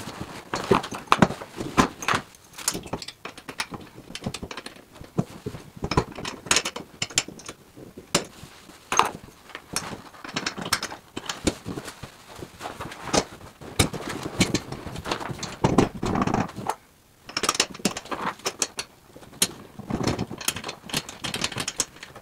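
Metal frame rails of an inflatable pontoon boat being fitted back into the seat frame: irregular clicks, knocks and rattles of metal parts, with a couple of longer scraping, rustling stretches as the pontoon is shifted.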